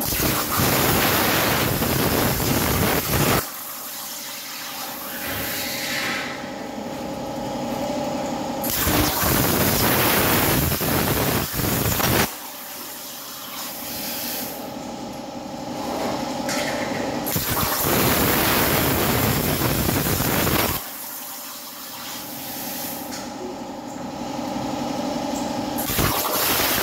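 CNC plasma cutter's torch cutting steel plate in repeated bursts: a loud, even hiss about four times, each lasting three to four seconds and cutting off sharply. Between the cuts there is a quieter steady hum while the torch moves to the next cut.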